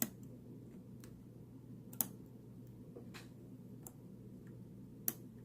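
Lock pick and tension wrench working the pin tumblers of a Guard Security padlock during single-pin picking: a few sharp metallic clicks at irregular intervals a second or two apart, with fainter ticks between.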